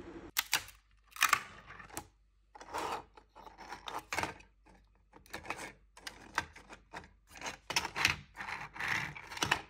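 3D-printed plastic truck parts being handled and pressed together by hand on a printer bed: irregular clicks and clacks of plastic pieces.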